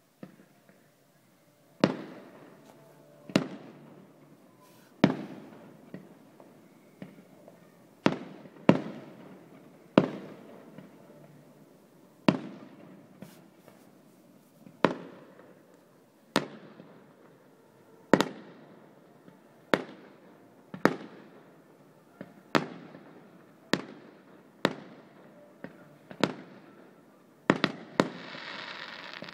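Fireworks bursting one after another, a sharp bang every one to two seconds, each trailing off in an echo. Near the end a hissing effect rises under the bangs.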